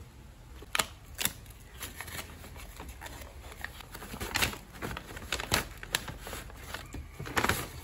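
Kraft paper bags rustling and crinkling as they are handled and a smaller bag is drawn out of a larger delivery bag. The crackles are sharp and irregular, with the loudest ones about a second in, around the middle and near the end.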